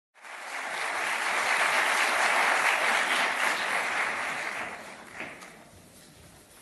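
Audience applauding. It starts abruptly and fades out over the last two seconds or so.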